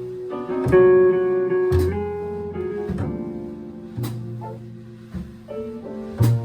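Guitar, piano, bass and drums playing together: held chords over changing bass notes, with a few sharp drum hits.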